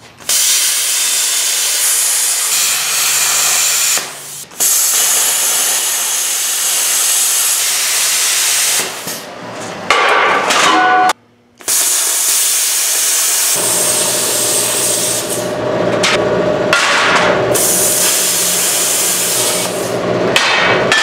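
Oxy-fuel cutting torch hissing steadily as it cuts through rusty steel, with a short metallic ringing clank about ten seconds in as the steel gives way.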